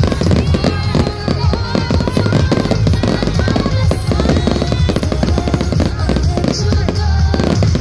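Fireworks display: a dense, continuous run of bangs and crackling from bursting aerial shells, with music playing alongside.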